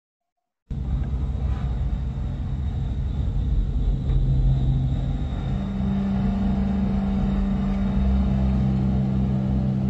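Low, steady rumbling drone of a dance-theatre soundscape, starting suddenly about a second in, with a second, higher hum joining about halfway through.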